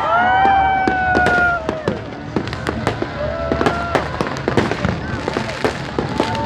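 Fireworks going off in quick succession: many sharp bangs and crackling pops, irregular and overlapping, with long drawn-out pitched tones over them, the longest in the first two seconds.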